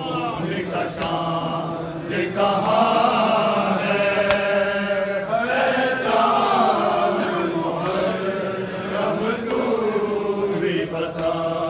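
Men's voices reciting a Muharram noha (mourning lament) in chant, long notes held and wavering in pitch, with several voices singing together.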